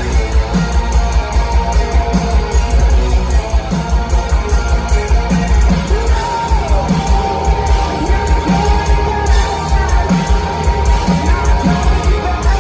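Live rock band playing loud: an electric guitar holds long sustained lead notes over steady drums, one note bending down in pitch about six seconds in.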